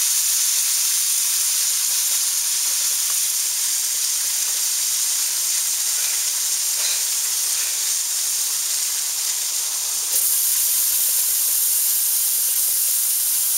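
Hash browns frying in hot oil in a pan: a steady high sizzle, getting a little louder about ten seconds in.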